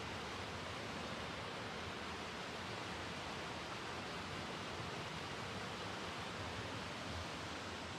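Waterfall pouring into a pool, with the stream below running over rocks: a steady, even rush of water.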